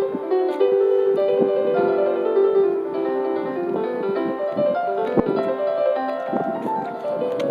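Background piano music: a steady flow of notes over held chords.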